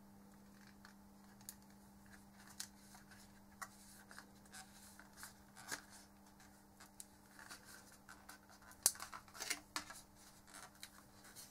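Faint clicks and scrapes of a small plastic cable strain-relief clamp being worked into a plastic tumble-dryer hose wall plate by hand, with a few sharper clicks about nine seconds in. A faint steady hum sits underneath.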